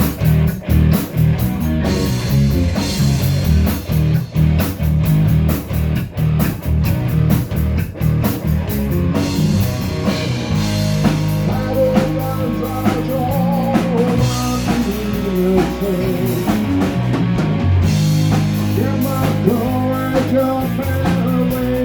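Live rock band playing: pounding drums and heavy bass at first, then from about halfway a lead line with wavering, bending notes over held bass notes.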